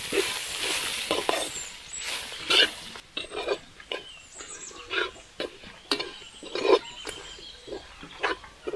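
A ladle stirring and scraping grated coconut, black pepper, cumin and dried chillies as they fry lightly in oil in a pan, in short irregular strokes about once a second.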